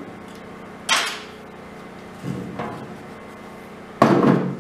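Sheet-metal ammo box being handled and set down on a steel base plate: a sharp metal clank about a second in, a few lighter knocks, and the loudest clank near the end as the box is stood in place.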